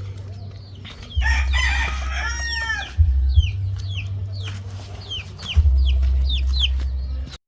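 A rooster crows once, about a second in, for roughly two seconds. It is followed by a run of short, high, falling chirps, about three a second, over a low rumble.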